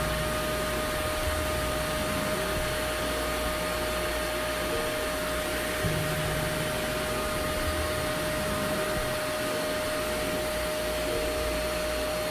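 Pet grooming dryer blowing air through its hose onto a wet cat's fur: a constant rushing blast with a steady whine in it.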